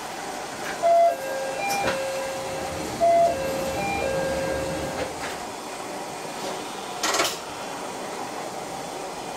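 Electronic chime aboard a diesel railcar: a short figure of a few notes played twice in a row, over the steady hum of the idling train, followed about seven seconds in by a brief hiss.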